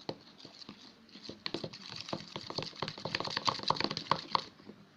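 Hands kneading and squeezing sticky homemade detergent slime, making rapid wet clicks and pops that grow denser and louder from about a second and a half in, then stop near the end.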